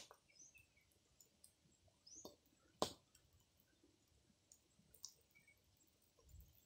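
Near silence broken by a few sparse, sharp crackles from a small fire of dry leaves and sticks roasting ears of corn in their husks, the loudest pop about three seconds in. Faint short bird chirps sound now and then.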